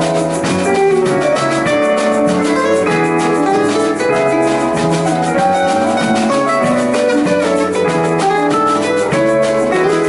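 Live band playing an instrumental passage with no singing: acoustic and electric guitars, keyboard and drum kit, with a hand shaker keeping a steady rhythm.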